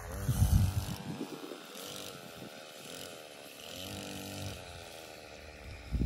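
A small petrol engine revving up and down in slow waves, its pitch rising and falling every couple of seconds. A brief low rumble about half a second in is the loudest sound.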